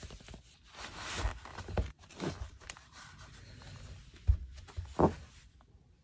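Rustling of cloth as thick socks are pulled on and boots are handled, with several dull thumps of boots on the floor, the two loudest about four and five seconds in.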